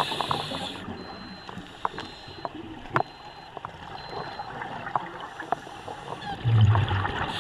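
Underwater recording of a scuba diver: a steady wash of water noise with scattered sharp clicks, and a louder low gurgle of exhaled regulator bubbles about six and a half seconds in. Four faint high beeps sound about a second apart.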